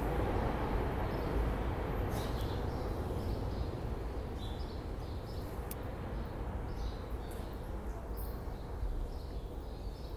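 Small birds chirping again and again under the platform canopy, over a steady low rumble that slowly fades.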